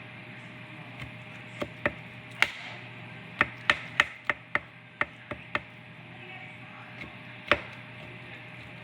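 A series of sharp, irregular taps and knocks, about a dozen, bunched closely together in the middle, over a steady low hum.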